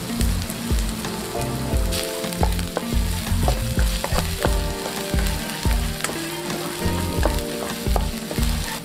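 Minced garlic sizzling in hot oil in a nonstick wok, stirred and scraped around the pan with a metal spatula in quick strokes.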